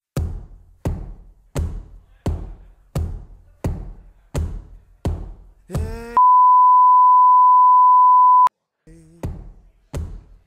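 Censor bleep: a loud, steady single-pitch beep held about two seconds, cutting off a shouted voice. Before it, a slow, even drum beat at about three strikes every two seconds, which comes back near the end.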